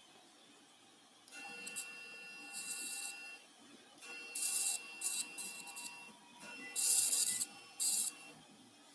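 Electrosurgical cautery unit sounding its steady activation tone three times, each for about two seconds, as the cautery pen cuts the soft tissue around the dog's ear canal. Short, loud hissing sizzles of burning tissue come over each tone.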